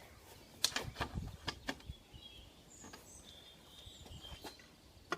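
A few light clicks and knocks, about half a dozen in the first two seconds and one more near the middle, from bike tools being handled at the bottom bracket. Faint bird chirps come in the middle.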